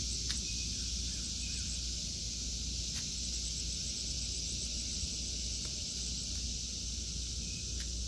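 Cicadas buzzing in a steady, unbroken high drone. A faint, quick run of higher chirps joins for a couple of seconds about three seconds in.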